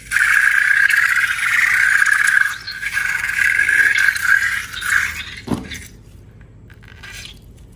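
Air squealing out of a stretched balloon neck: a high, fluttering squeal held for a couple of seconds, broken off, then a second squeal. Soon after, a short sound drops sharply in pitch.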